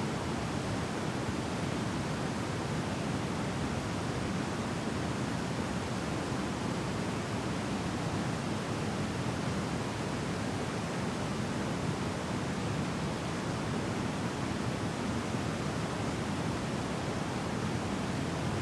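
Heavy torrent of a large waterfall, Sogi Falls, pouring over rock: a steady, unbroken roar of falling water.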